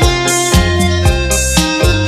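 Electronic keyboard music: a held melody on a string-like voice over a bass line, with a steady drum beat about twice a second.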